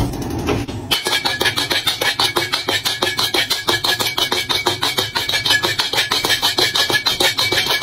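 Background music with a fast, steady percussive beat, coming in about a second in after a short hiss.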